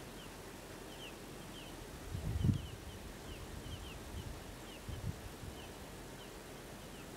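Quiet outdoor ambience: faint, short, falling high chirps repeat irregularly several times a second. A low rumble comes about two seconds in, with a smaller one around five seconds.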